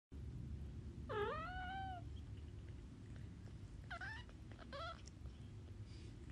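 A kitten meowing: one long mew about a second in that dips and then rises, then two short mews around four and five seconds in. A low steady background noise runs underneath.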